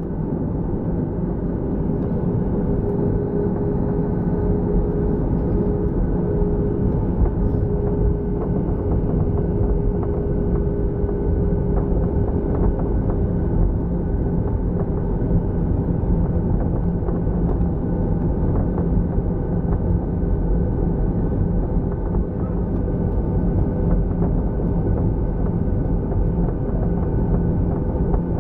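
Jet airliner's cabin noise heard at a window seat over the wing: a steady engine rumble with a constant low hum as the plane rolls along the ground.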